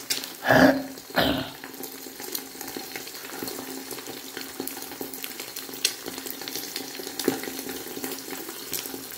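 Eggs frying in a pan at medium heat, with a steady sizzle. Two short, louder noises come about half a second and a second and a quarter in.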